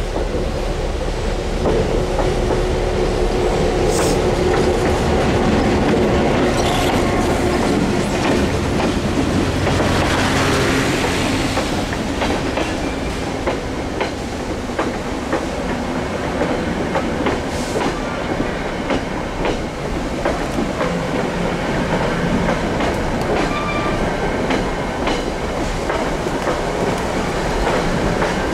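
EMD FP7 diesel locomotives approaching and passing close by, their engines running with a steady hum that swells about ten seconds in as they go past. After that comes the rhythmic clickety-clack of the passenger coaches' wheels over the rail joints as the coaches roll by.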